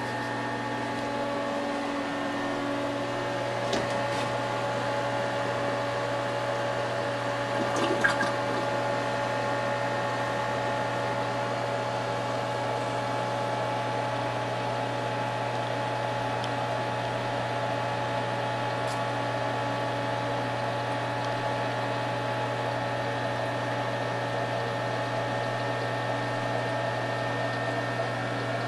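Reef aquarium equipment running: a steady pump hum with several held tones over the rush of circulating water. A couple of short clicks sound about four and eight seconds in.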